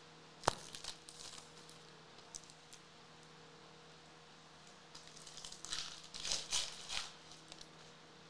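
Foil wrapper of a Topps Series 2 baseball card pack being torn open with a sharp snap about half a second in, then crinkling of the wrapper and rustling of cards handled, loudest about six to seven seconds in.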